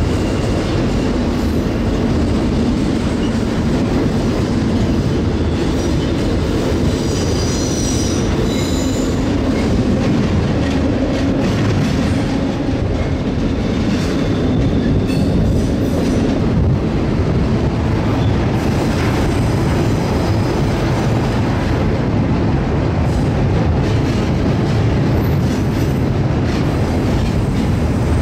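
Freight train rolling along the track, heard from on board a container well car: steady noise of the wheels on the rails, with a brief high wheel squeal about eight seconds in.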